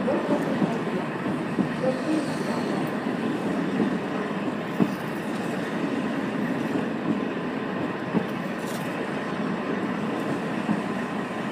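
JR Hokkaido 711 series electric multiple unit rolling slowly past as it pulls into the platform: a steady rumble of wheels on rail, with a few irregular clacks as the wheels cross rail joints.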